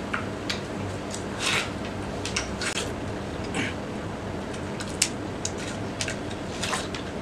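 People biting and chewing fresh watermelon quickly: an irregular run of short, wet crunches and slurps, with a steady low hum underneath.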